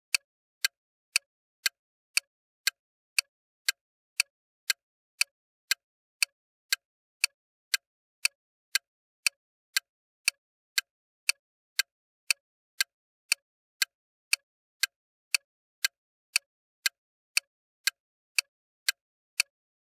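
Bomb timer click sound effect: sharp, bright clicks at a steady rate of about two a second, with silence between them.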